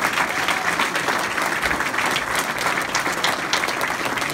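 A room full of people applauding: dense, steady clapping from many hands.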